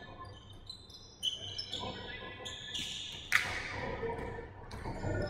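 Basketball shoes squeaking on a hardwood gym floor: short high squeaks, one after another, as players run and cut. A single sharp impact stands out about three seconds in.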